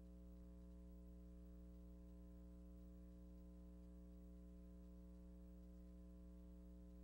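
Near silence: only a faint, steady low hum with a stack of unchanging overtones.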